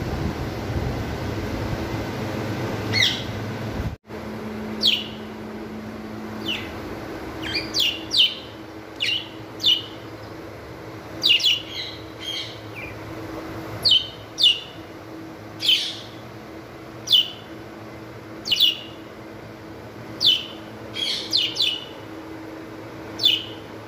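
Pet budgerigars chirping: short, sharp calls that fall in pitch, one or two a second, beginning about four seconds in. Before that there is a steady background hum with a single chirp.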